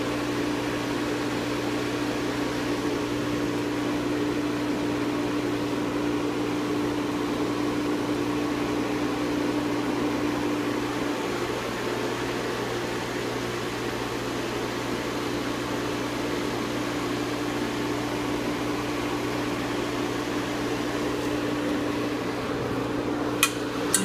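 Refrigerant recovery machine running steadily, its compressor drawing the last R-134a vapor out of a disposable cylinder down into a vacuum, with a steady hum and tone. A few sharp clicks near the end.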